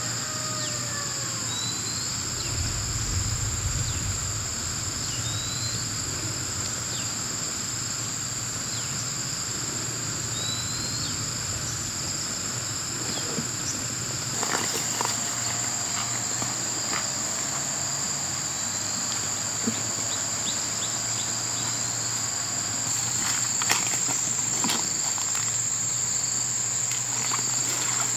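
Steady high-pitched insect chorus, with a few short rising chirps in the first half and scattered clicks and rustles from about halfway on.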